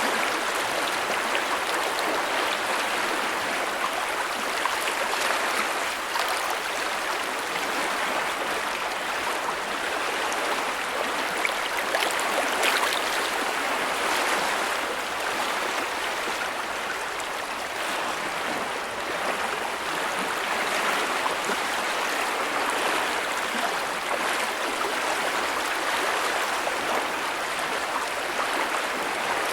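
Big creek running: steady rushing and babbling of flowing water, with small splashes flickering through it.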